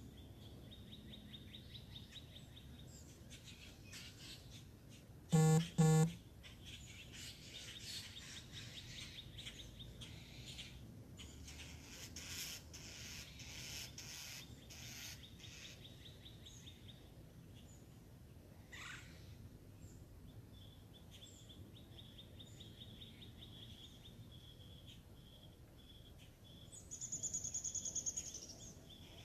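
Birds chirping and calling against a steady pulsing chirr, with two loud short pitched calls about five and a half seconds in and a buzzy, rapidly pulsed call near the end.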